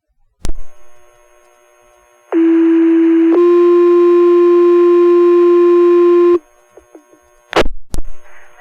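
Fire department radio paging alert heard over the radio: a click as the transmitter keys up, then a two-tone sequential page, one tone held about a second followed by a slightly higher tone held about three seconds. Two more radio clicks come near the end.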